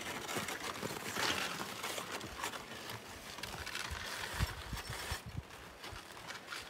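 Footsteps crunching in snow with a loaded sled scraping along over the snow behind them, a stream of irregular knocks that slowly fades as the walker moves away.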